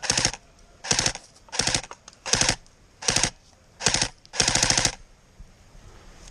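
Airsoft rifle firing seven short automatic bursts, each a rapid rattle of shots, spaced roughly half a second to a second apart.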